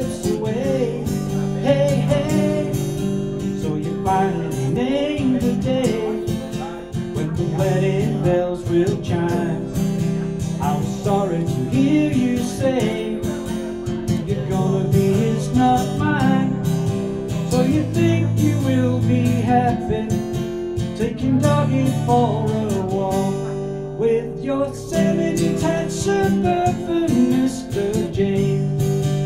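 Acoustic guitar strummed in steady chords, with a man singing along.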